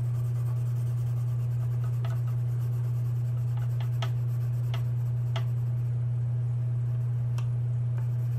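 Colored pencil shading on paper in short strokes, with a handful of light ticks, under a steady low hum that is the loudest sound throughout.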